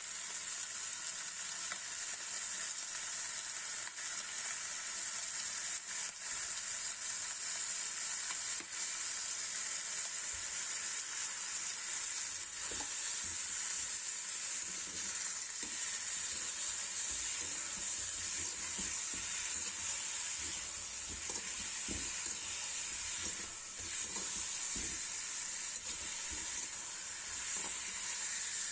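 Chicken wings sizzling steadily in a hot pan, with the knocks of a spatula stirring them from about halfway through.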